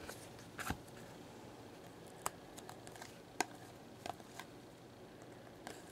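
Glossy foil trading cards being slid one by one through a stack in the hands, giving a handful of faint, irregular clicks and rustles.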